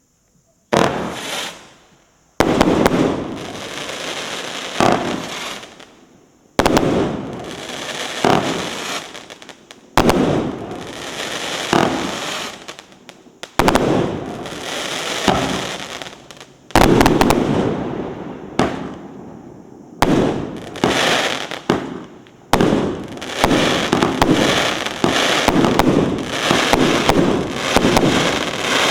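A 112-shot, 1.25-inch consumer fireworks cake (battery) firing in repeated volleys. Each volley begins with a sudden loud launch and is followed by a dense run of sharp reports that fades over a few seconds, with a fresh volley starting about every two to four seconds.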